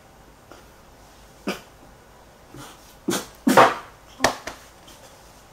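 A person coughing and spluttering on a mouthful of dry cinnamon powder: a handful of short, harsh bursts, the loudest about three and a half seconds in.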